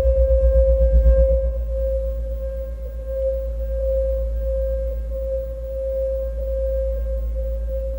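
Ambient performance score: a sustained pure tone held steady over a low drone. A fast low throb under it stops about a second and a half in, leaving the drone.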